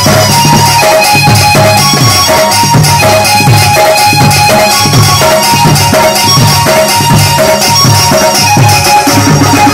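Loud live band music: an electronic keyboard plays a repeating melody over a steady, even beat of drums struck with sticks.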